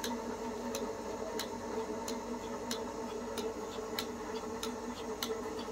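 Milking machine running while milking: the pulsator clicks in an even rhythm, about three clicks every two seconds, over a steady hum from the machine.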